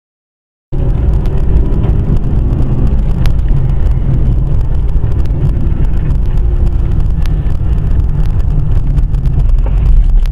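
Car driving along a road, heard from inside the cabin: steady engine and road rumble with some wind buffeting. It starts abruptly just under a second in, out of silence.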